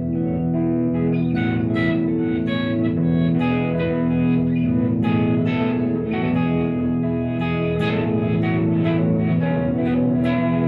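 Epiphone Les Paul Junior electric guitar being played through an amplifier, notes and chords plucked one after another and left ringing, with a small-room echo.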